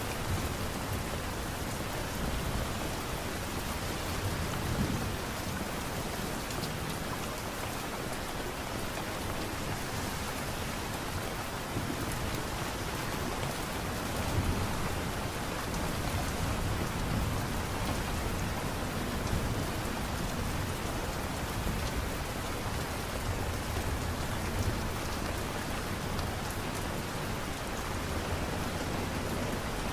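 Steady light rain falling, an even hiss of drops with a few soft low swells now and then.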